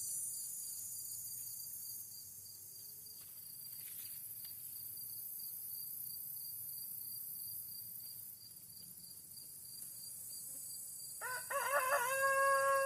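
A rooster crows once, about eleven seconds in: one long call of about two seconds over a steady high insect buzz.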